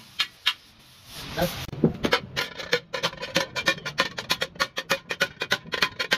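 Hand hammers striking a steel kassi (hoe) blade on an iron anvil. A few single blows open, then a short rush of noise. From about two seconds in, two hammers strike in quick alternation, several blows a second.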